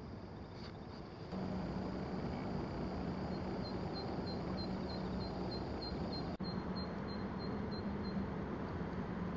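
Steady outdoor background noise with a low hum. From about three seconds in, an insect chirps in a regular, high-pitched pulse of about four chirps a second, stopping near the end.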